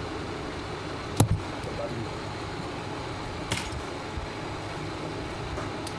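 Small hand tools being handled over a phone-repair bench: two sharp clicks, a loud one about a second in and a weaker one about halfway through, over steady background noise.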